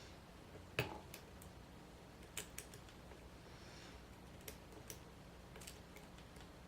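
Lock pick and tension wrench clicking and tapping against the pins inside an ACE rekeyable padlock with serrated spool pins: a few sharp, irregular metallic clicks, the loudest about a second in.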